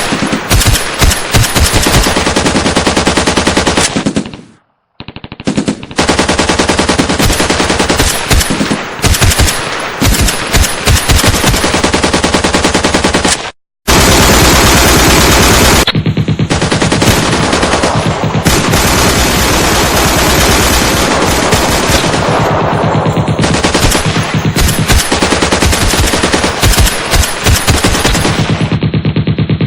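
Machine-gun firefight: long, dense bursts of automatic fire from several guns overlapping. The firing cuts out twice for a moment, about four and a half seconds in and again near the middle, then carries on.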